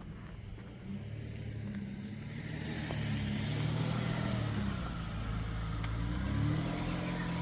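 A car engine running at low speed, growing louder as it draws near, its pitch wavering and shifting about six seconds in.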